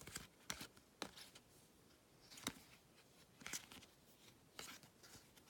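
Faint, sparse slides and flicks of baseball trading cards being flipped through by hand, one card about every second.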